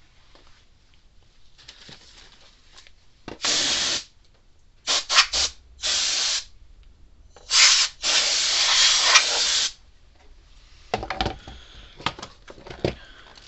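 Aerosol can spraying in a series of hissing bursts, a few short ones and one long one of nearly two seconds, into an emptied plastic fence-charger case. A few light knocks and clicks near the end as the case is handled.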